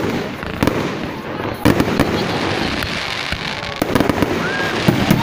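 Aerial fireworks shells bursting: about half a dozen sharp bangs at uneven intervals, over a continuous noisy background.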